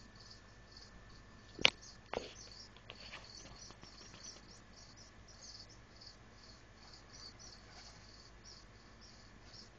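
Crickets chirping in short repeated trills, faint and steady, with two sharp knocks about a second and a half and two seconds in, the first one loud.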